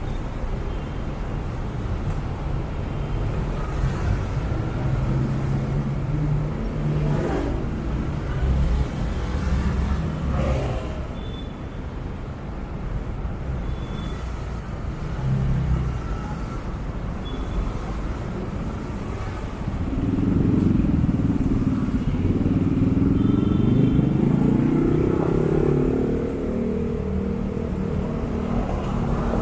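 Motorcycle riding in slow, heavy city traffic: a steady rumble of its engine and the surrounding cars and trucks. About two-thirds of the way through, an engine revs up, its pitch rising and then holding for several seconds, the loudest sound here.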